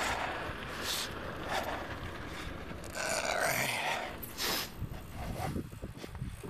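A small utility cart towing a loaded two-wheel trailer drives past, its running gear and the trailer rattling and scraping over the asphalt, with irregular knocks.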